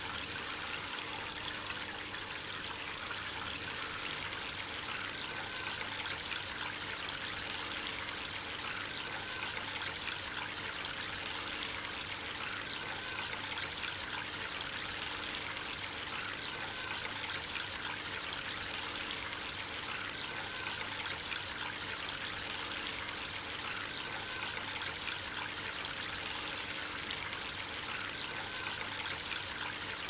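Water trickling steadily from the spouts of a three-tier polyresin stacked-stone garden fountain, falling in thin streams into the bowls below.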